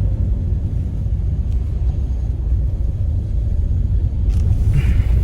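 Steady low rumble of a car heard from inside the cabin, engine and road noise, with a brief hiss near the end.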